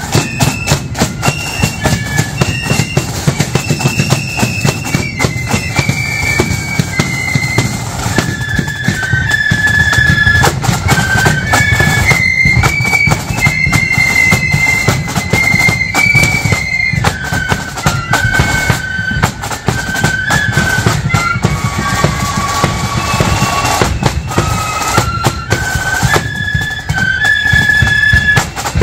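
Marching flute band playing a march tune: high flutes carry a stepping melody over a dense, steady beat of snare and bass drums.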